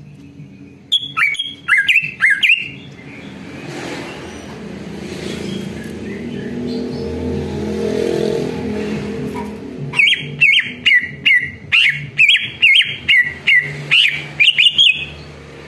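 Greater green leafbird (cucak ijo) calling in loud, sharp, rapid chirping notes. There is a short burst early, and a long run of about two to three notes a second in the second half. Between them a low rumble swells and fades.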